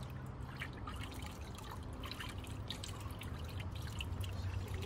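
Water in a shallow paddling pool splashing and dripping as hands move a puppy about in it: light, irregular small splashes and drips.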